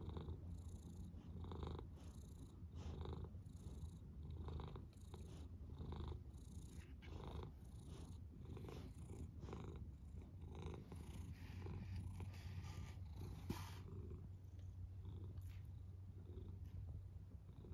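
Domestic cat purring steadily, close up, the purr swelling and easing in an even rhythm of about three breaths every two seconds.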